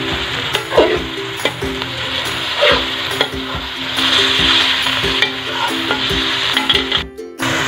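Beef mince and sliced onions sizzling in hot oil in a metal pan, stirred with a slotted metal spatula that knocks and scrapes against the pan, with music playing underneath. The sound drops out briefly near the end.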